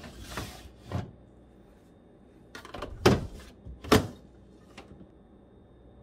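Plastic refrigerator rail basket sliding along its rails under a shelf, scraping as it is pushed in and pulled out, with several sharp plastic knocks as it stops; the two loudest knocks come about three and four seconds in.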